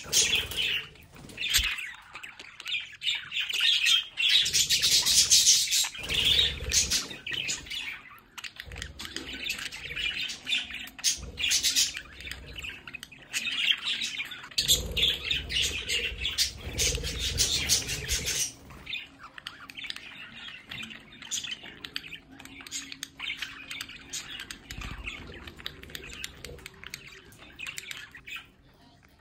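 Several budgerigars chattering, chirping and squawking together, busiest in two spells and thinner over the last ten seconds.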